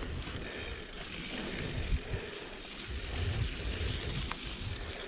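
Mountain bike rolling down a muddy trail: tyre and trail noise under a fluttering low rumble of wind on the action camera's microphone, with a few light clicks.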